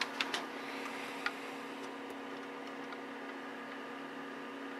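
Digital multimeter's continuity buzzer sounding a steady low buzz while its probes bridge two pins of a desoldered triac: the sign of a short across the triac, which is blown. A few light clicks of the probes in the first second or so.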